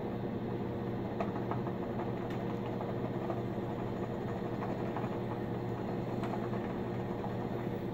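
Shaving brush whipping a light, airy shaving-soap lather back and forth in a shaving bowl: a steady, soft wet swishing, over a low steady hum.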